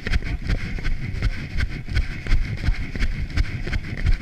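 Running footsteps on a dirt forest trail going uphill, an irregular patter of dull thuds, over a low rumble of wind and jostling on the runner-carried camera's microphone.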